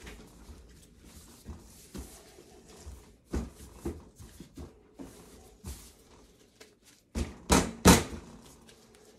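Gloved hands kneading a lump of bubble-bath dough on a stainless steel worktable: irregular soft thumps and slaps of the dough against the metal, the loudest three coming close together near the end.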